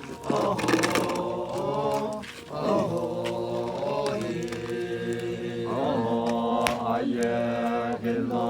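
Music: a voice singing long held notes, gliding between them, over a steady low drone, in a chant-like style.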